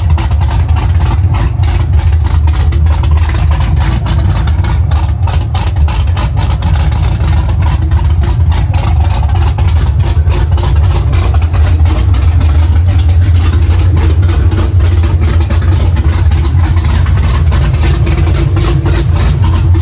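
Supercharged V8 of a heavily cammed Chevrolet ZL1 Camaro idling loudly with a choppy, uneven lope from its big custom-grind race cam.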